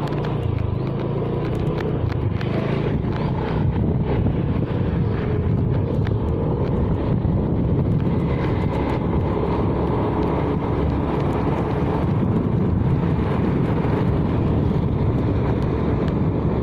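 A motor vehicle travelling on the road: steady engine and road noise.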